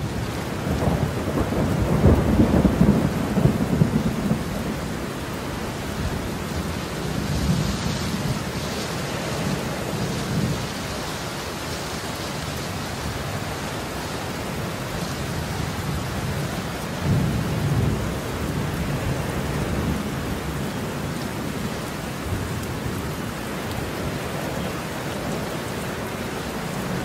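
Steady rain with rolling thunder: a long low rumble in the first few seconds and another about two-thirds of the way through.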